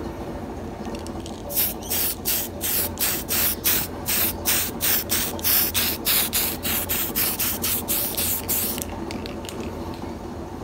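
Aerosol spray paint can sprayed in a rapid series of short hissing bursts, about three a second, starting about a second and a half in and stopping a couple of seconds before the end.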